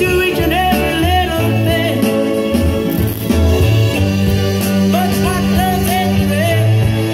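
Rock music with guitar played back over Braun hi-fi loudspeakers and heard in the room.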